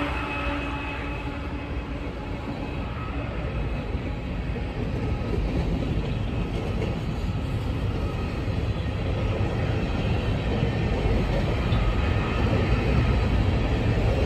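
Coal hopper cars of a freight train rolling past, a steady rumble of wheels on the rails. The engine hum of the passing BNSF diesel locomotives fades out in the first couple of seconds.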